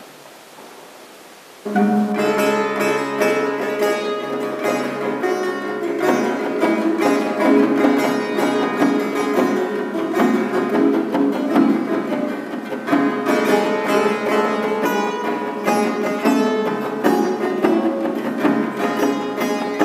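Persian plucked string instrument played solo, starting abruptly about two seconds in and going on with quick, dense plucked notes.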